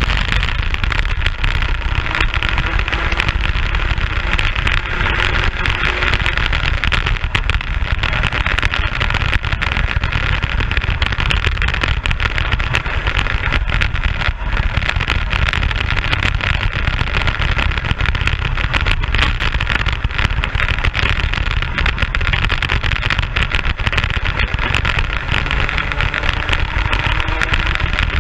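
Racing kart engine at speed, its pitch rising and falling as it is driven through the corners, half buried under heavy wind noise on the onboard microphone.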